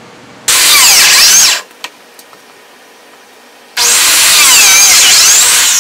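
Electric biscuit (plate) joiner cutting biscuit slots in red oak boards: two loud runs, a short one of about a second, then a longer one starting partway through, the motor's whine dipping in pitch as the blade bites into the wood.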